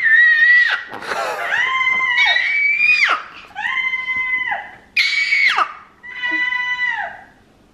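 A 14-month-old baby screeching: a string of about six high-pitched, drawn-out squeals, each a second or so long with brief pauses between, several dropping sharply in pitch as they end.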